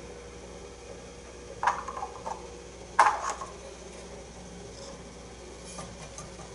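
A few brief knocks and clicks from hands handling the thread and gear at the work bench: a short cluster about a second and a half in and a sharper knock about three seconds in, over a steady low hum.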